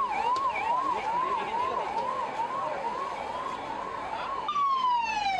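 Emergency vehicle siren in a fast rising-and-falling yelp, about two cycles a second, that changes near the end to one long falling wail.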